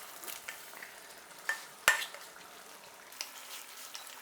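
Mutton frying with ground masala in a cooking pot: a soft steady sizzle with a spoon clinking and scraping against the pot, two sharper knocks a little before two seconds in.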